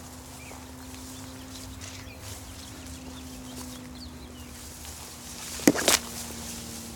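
Footsteps wading through tall dry grass, the stalks rustling and brushing past. There is one loud, sharp crackle near the end.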